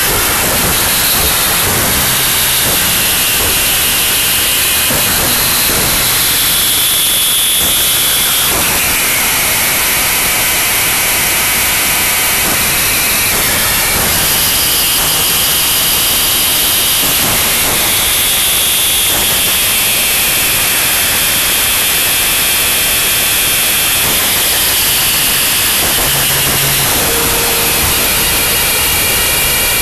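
Harsh noise wall recording: an unbroken, loud wall of static hiss, with faint high whistling tones inside it that shift to a new pitch every few seconds.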